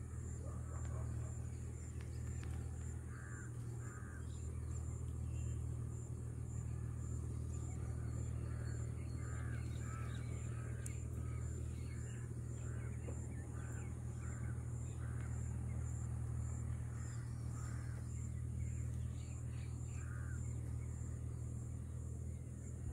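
Outdoor ambience: birds giving short calls in ones and twos, over a steady high pulsing insect call and a constant low rumble.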